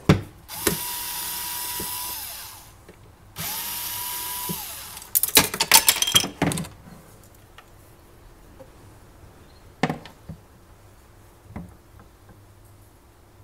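Cordless drill-driver run twice for about two seconds each, spinning up and winding down, typical of backing out screws. A quick burst of clattering knocks follows, then two single knocks.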